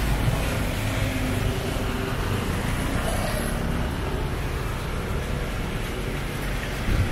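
Road traffic on a city street: a steady rumble of car engines and tyres from passing vehicles, with a brief knock near the end.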